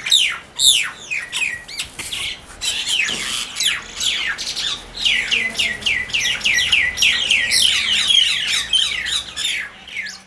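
Common mynas fighting, giving a rapid, unbroken string of harsh squawks, each sweeping downward in pitch, several a second.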